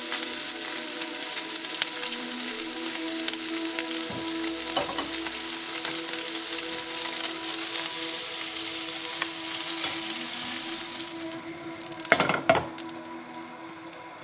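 Food sizzling steadily in a hot pan. The sizzle dies down about eleven seconds in, and a few clattering knocks follow.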